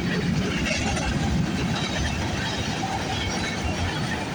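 Long freight train rolling past at speed: a steady rumble of steel wheels on the rails.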